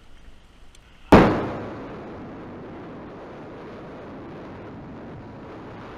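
About a second in, a sudden loud burst of noise that fades quickly into a steady, even rush of wind buffeting the microphone of a camera held out while riding a quad bike at speed.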